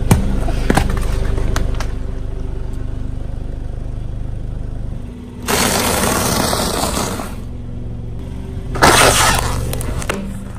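A car running over and crushing a brittle object under its tyre, with the engine running low and steady. A few sharp cracks near the start, then two loud bursts of crunching and shattering, the first about five and a half seconds in and lasting nearly two seconds, the second shorter, near the end.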